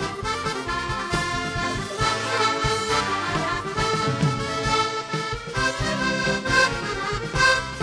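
Accordion playing a paso doble melody of held, chord-rich notes over a steady beat.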